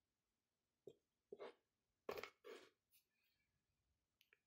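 Near silence: room tone with about six faint, brief sounds scattered through it.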